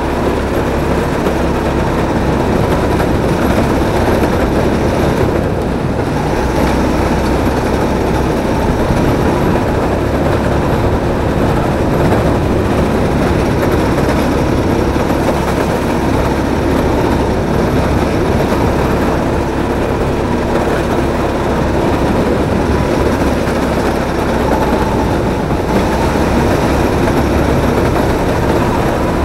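Onboard sound of a drift kart driving around a concrete track: a loud, steady rumble of the kart's motor and tyres, with a faint whine.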